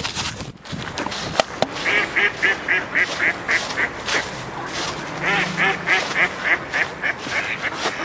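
A flock of ducks on a pond chattering and quacking in rapid runs of short calls, about four or five a second, in two stretches, the second starting about five seconds in. A couple of sharp knocks sound about a second in.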